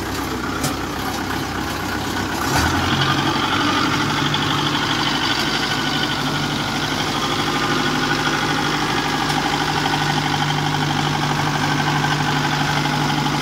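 Engine of a tracked crawler machine running as it climbs a bank under load. About two and a half seconds in it rises in pitch and gets louder, then runs steadily.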